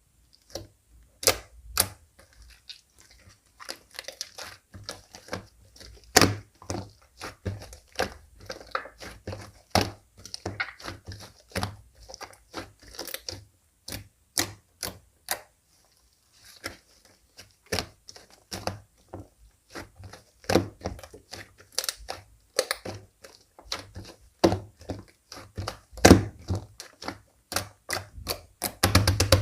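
Hands squishing, stretching and folding slime, giving irregular sticky clicks, pops and crackles, with a quieter stretch near the middle.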